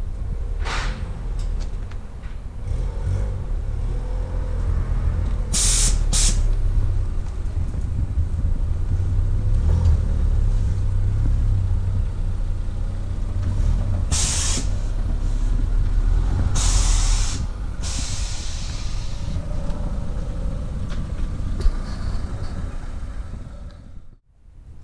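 Car on the move, its engine a steady low rumble, with several short, sharp hisses: one about a second in, two around six seconds in, and more at about fourteen and seventeen seconds in.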